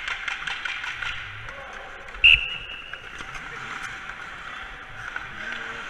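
Ice hockey practice on the rink: skate blades scraping the ice and sticks clacking on pucks and ice, in a steady hiss dotted with sharp clicks. A little over two seconds in comes one loud, sharp, high ringing sound that fades within a second.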